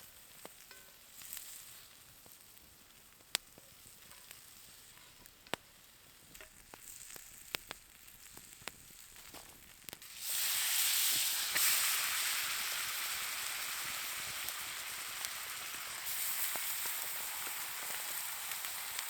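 Scattered light clicks and taps, then about halfway through pork chops go into a hot pan and start sizzling, a steady frying hiss that carries on to the end. The heat is on the low side for searing, by the cook's own judgement.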